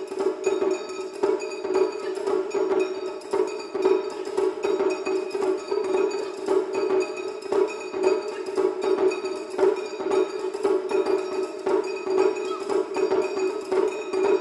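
Background music: a Japanese taiko drum piece with fast, dense strikes that keep going without a break.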